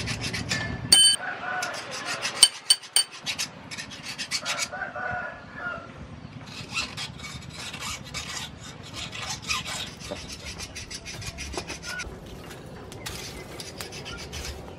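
Scattered light clicks and scrapes as a steel bearing ring and forge tools are handled, with one sharp metallic clink about a second in. A few short chicken calls sound in the background.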